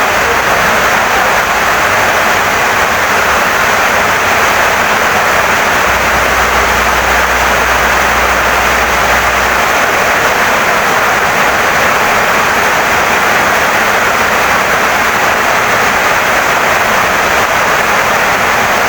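Heavy rain pouring steadily onto a wooden house, a dense, even hiss with no breaks.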